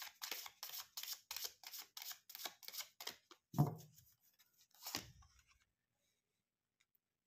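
Tarot cards flicked one after another off the deck: a quick run of crisp clicks, about five a second, for some three seconds. Then two deeper, duller knocks about a second and a half apart.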